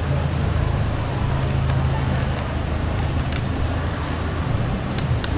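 An engine running steadily at idle, a low even hum, with traffic-like background noise and a few light clicks.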